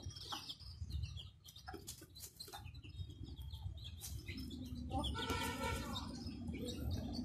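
Chickens feeding: chicks peeping in short high chirps and hens clucking, with one longer call about five seconds in.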